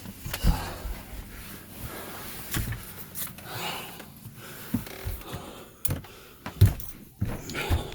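Irregular knocks, bumps and rustling from someone moving around and handling things inside a boat's cramped anchor locker, several sharper thumps among softer scuffs.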